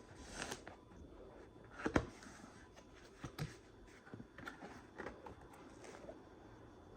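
Scattered light clicks and knocks of objects being handled, the loudest one about two seconds in.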